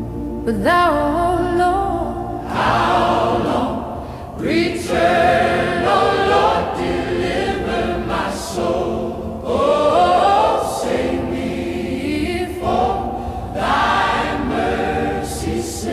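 Gospel choir singing a slow hymn, several voices holding and sliding between notes in swelling phrases with no clear words.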